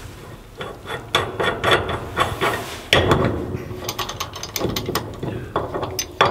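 Pipe wrench working the threaded steel levelling leg of a Dominion & Grimm maple sap evaporator, giving irregular runs of quick metallic clicks as the wrench is swung and reset.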